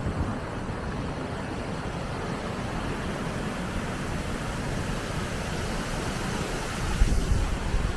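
Steady rush of river water pouring through a dam, with wind buffeting the microphone about seven seconds in.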